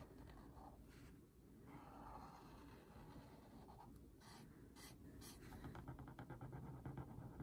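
Faint scratching of an Ohuhu brush-tip alcohol marker stroking across a colouring-book page. About four to five seconds in, a few sharper strokes. Near the end, a quick run of rapid back-and-forth strokes.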